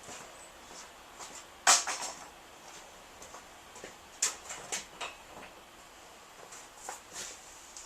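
Scattered sharp clicks and knocks of equipment being handled while getting ready to spray paint, the loudest about two seconds in and a quick run of smaller ones a couple of seconds later.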